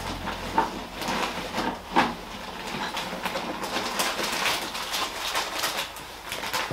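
Irregular clattering and rustling of small objects being handled on a wooden workbench, with two sharper knocks, about half a second in and at two seconds.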